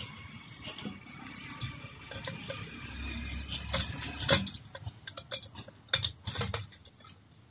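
Glass chimney of an antique kerosene table lamp clinking against the brass burner gallery as it is set in place: a series of sharp clicks and taps, loudest about four seconds in.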